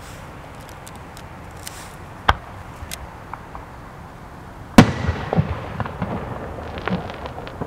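Aerial firework shells bursting: a sharp crack about two seconds in, then a much louder bang a little before five seconds. The bang trails off in a rumble with scattered smaller pops.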